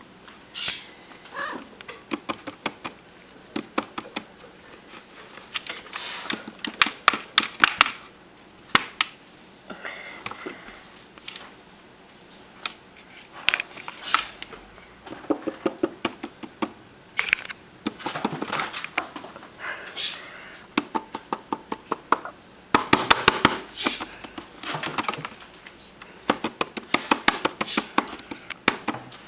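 Small magnets clicking and tapping against a metal surface as a cat bats at them, in irregular clusters of sharp clicks with short pauses between.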